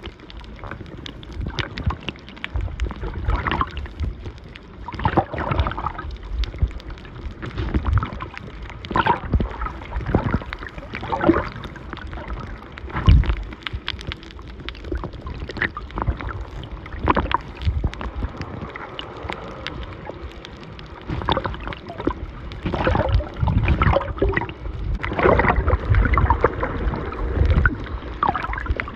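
Water gurgling and sloshing around a camera filming in the sea, in uneven swells with scattered knocks and bubbly surges.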